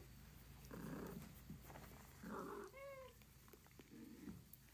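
Faint cat meows: a few soft, short cries, then one clear meow about three seconds in that rises and falls in pitch.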